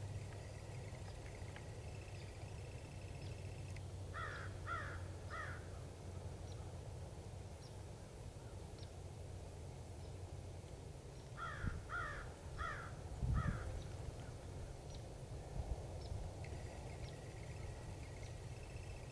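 Crows cawing: a run of three caws, then later a run of four, over a steady low background hum. A couple of low thumps come during the second run.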